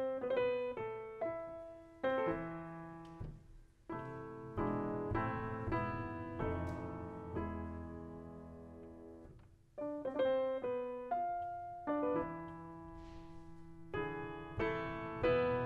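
Grand piano being played: a passage of chords and melody notes, with one chord held and left to fade for a few seconds midway before the playing picks up again.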